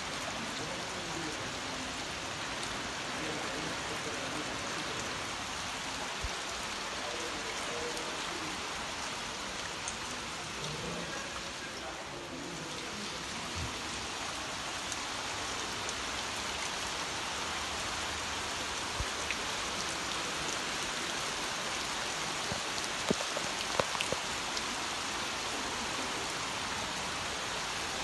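Rain falling steadily on shallow floodwater, an even hiss throughout, with a few sharp taps about three quarters of the way through.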